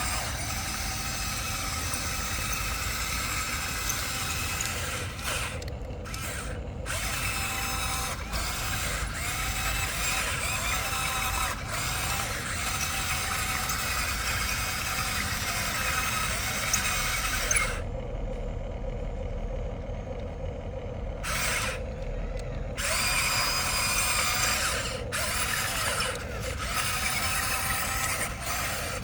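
Small electric motors and gears of a Huina remote-control excavator whining as it is driven. The motors stop for a few short moments, the longest for about three seconds some eighteen seconds in.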